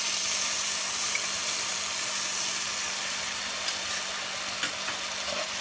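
Sugar and a few spoonfuls of water sizzling in a hot non-stick pan as the sugar syrup begins to cook, a steady hiss over a steady low hum. A few faint clicks come in the second half.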